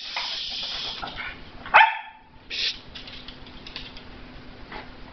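A West Highland White Terrier gives one short bark a little under two seconds in, after a second or so of rustling. A brief scrape follows.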